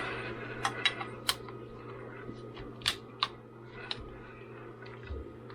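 Small hard clicks and taps of a 360 camera being handled and fitted into its protective housing, about a dozen irregular clicks over a steady low hum.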